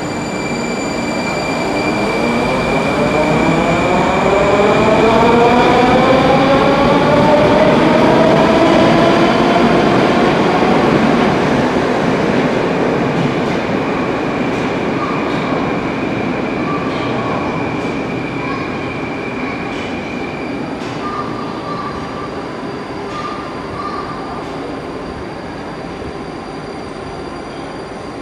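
An 81-740/741.4 Rusich metro train pulling away and accelerating, its traction drive whining in a stack of tones. The tones rise in pitch for about the first ten seconds and then level off over the rumble of wheels on rail. The sound swells and then slowly fades as the train moves off.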